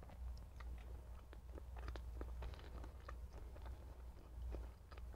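A person chewing a mouthful of food with the mouth closed: a string of small, irregular clicks over a low steady hum.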